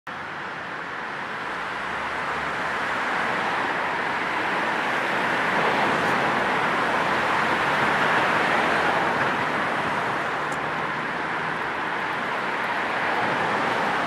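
Road traffic at night: a steady rush of passing cars that builds to a peak about halfway through, eases a little, then rises again.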